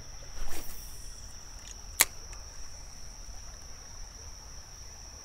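Insects droning steadily at one high pitch, crickets or cicadas. About half a second in there is a short whoosh, and about two seconds in a single sharp click.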